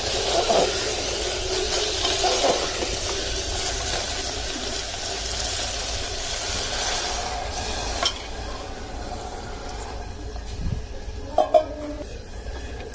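Soaked rice sizzling in hot oil in a pressure cooker as it is stirred with a perforated metal spoon. About eight seconds in the sizzle drops away sharply as water goes in, leaving quieter stirring with a few clinks of the spoon against the pot near the end.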